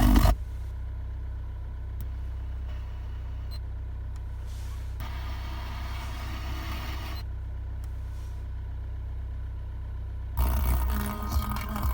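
The car multimedia system's sound cuts out, leaving only a steady low hum inside the car. The audio comes back loudly about ten seconds in. The dropout is the fault the system shows.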